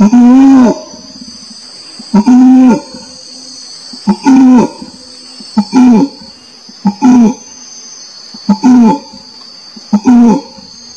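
An orangutan calling over and over: about seven loud, moaning calls of roughly half a second each, every one rising then falling in pitch, a second or so apart. A steady high insect drone runs underneath.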